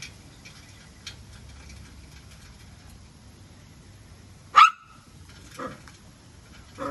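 Small dog, a poodle, gives one sharp bark about four and a half seconds in, then two quieter calls near the end.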